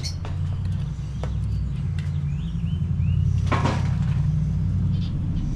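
Frying pan of bananas in caramel sauce being shaken on a small wood-fired stove, with one louder scrape or clatter of the pan about three and a half seconds in. Under it runs a steady low rumble.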